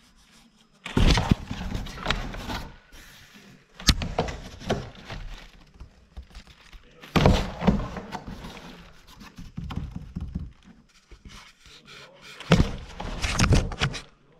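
Cardboard box being thumped, scratched and rustled as a cat plays inside it among plastic packing while a hand teases it at the flap. The noise comes in four bouts of a second or two each, with one sharp knock about four seconds in.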